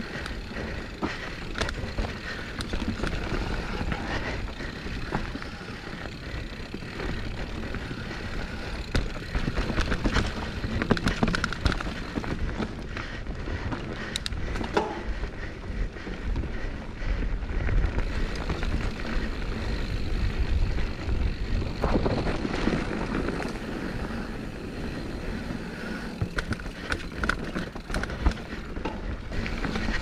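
Santa Cruz Bronson mountain bike riding down a rocky technical trail: tyres rolling and scrabbling over dirt and rock, with the bike rattling and knocking over frequent impacts.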